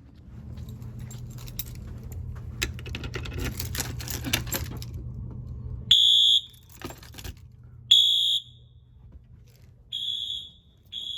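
Rustling and knocking for about six seconds, then a Wheelock MT fire alarm horn sounds three short, loud, high-pitched blasts about two seconds apart. The brief pulses are the horn signal of an audible walk test.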